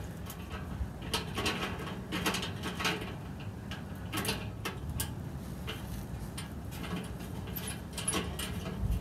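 Small metal clicks and scrapes from a bolt, nut and bracket being fitted by hand to a stainless steel grill ring, coming in a few short clusters over a steady low background noise.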